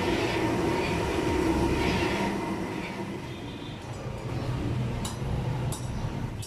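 Steady roar of a large gas burner under a big iron karahi of milk coming to the boil. Two sharp clicks near the end, from the long metal stirrer knocking against the pan.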